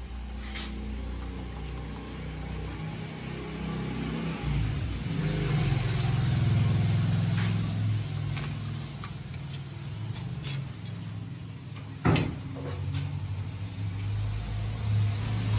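A motor vehicle's engine hums low and steady, swelling louder for a few seconds in the middle as if passing or revving. Metal utensils clink now and then against a steel pot and tray, with one sharp clank about twelve seconds in.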